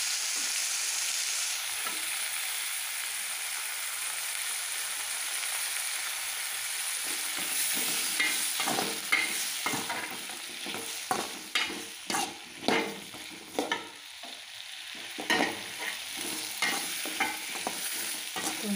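Tomatoes, shallots and garlic sizzling in oil in a metal kadai; from about eight seconds in, a steel spatula scrapes and clacks against the pan again and again as the vegetables are stirred.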